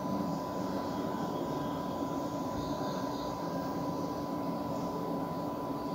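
Steady background hum and hiss, with a faint high steady tone.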